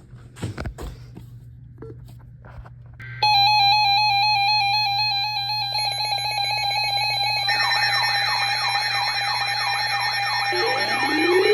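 Emergency alert tones: after about three seconds of faint clicks over a low hum, a loud steady electronic alert tone starts suddenly. More tones pile on, and from about halfway repeated warbling siren-like sweeps and a rising glide join in.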